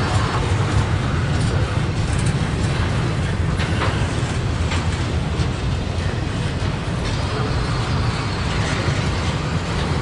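Double-stack intermodal freight train's well cars rolling past: a steady low rumble of steel wheels on rail, with a few sharp clicks near the middle.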